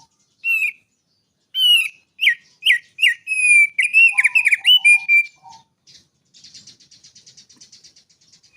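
Songbird singing a run of loud, clear whistled notes that slide down in pitch, then a quieter, fast, even trill near the end.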